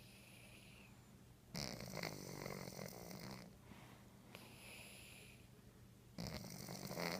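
Domestic cat snoring in its sleep: two louder snoring breaths, about a second and a half in and again near the end, with softer breaths between them.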